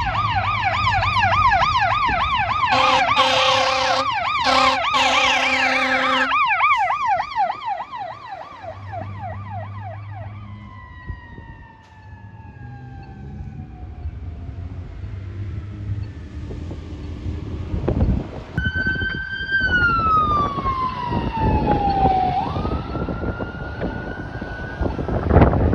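Fire apparatus sirens on an emergency response: a fast yelp with three air-horn blasts in the first several seconds, then a slow wail that fades into the distance. Near the end a second wail falls, rises and falls again, with wind buffeting the microphone.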